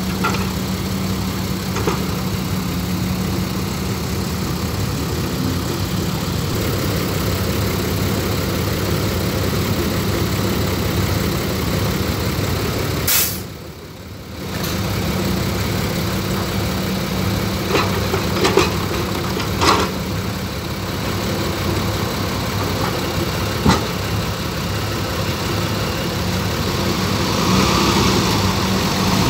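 Diesel engines of a Cat excavator and a dump truck running steadily while the excavator loads earth into the truck. A few sharp knocks come in the second half, and the sound dips briefly about halfway through.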